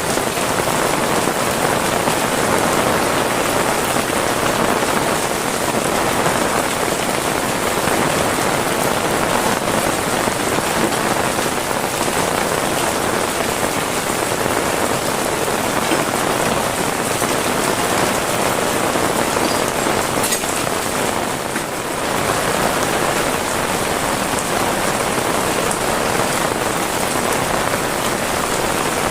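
Heavy rain falling steadily on surfaces, a dense, even hiss of drops.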